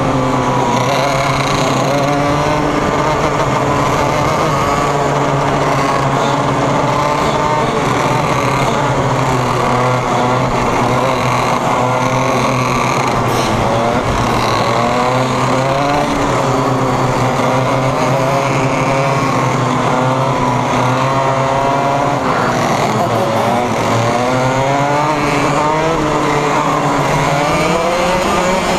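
Racing kart engine heard from on board during a race, its pitch rising and falling again and again as it revs up and drops back through the corners, with the engines of other karts close by.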